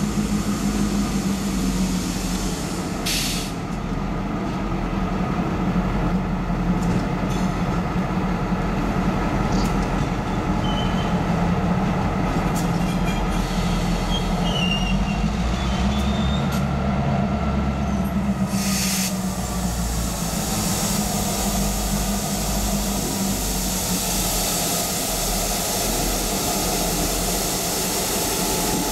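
Two EMD GP38-2 diesel locomotives, their two-stroke V16 645 engines running steadily at low throttle, rolling slowly past close by. Two short bursts of air hiss come a few seconds in and again about two-thirds of the way through.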